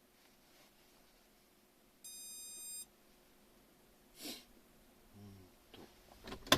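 Remote engine starter system giving one steady electronic beep just under a second long, about two seconds in, as the starter is being set up. A short rustle follows, then a run of clicks ending in a sharp knock near the end.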